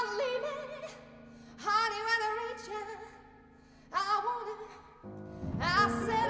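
Operatic soprano singing short phrases with wide vibrato over sustained low notes from a contemporary chamber ensemble. About five seconds in, the ensemble comes in louder and fuller in the low register.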